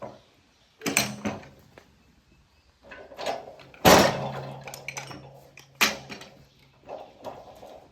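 Several separate knocks and clatters from work at a portable sawmill, the loudest about four seconds in, followed by a low steady hum for a few seconds.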